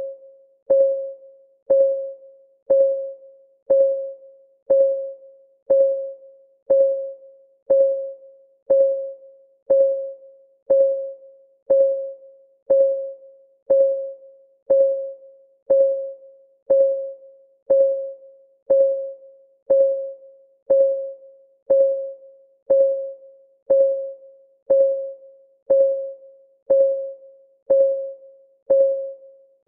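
Clock ticking sound of a countdown timer, one tick a second, steady and even. Each tick is a sharp click with a short pitched ping that dies away.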